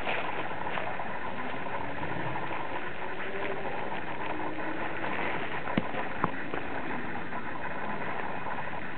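Footsteps on dry leaf litter over a steady background noise, with two sharp clicks a little past the middle.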